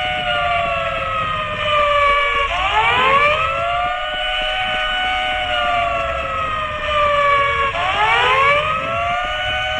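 Wailing alarm siren: its pitch rises sharply twice, about five seconds apart, and slowly falls after each rise.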